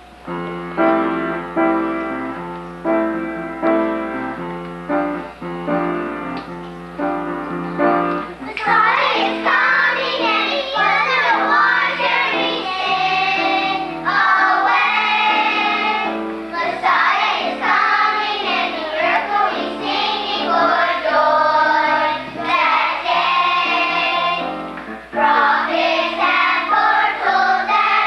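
Piano introduction of struck, fading notes for about eight seconds, then a children's choir comes in singing a song over the piano.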